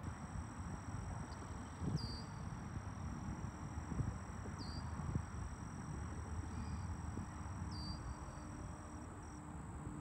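Outdoor ambience: wind noise on the microphone, with a steady high-pitched insect trill that drops out briefly near the end and three short bird chirps a few seconds apart.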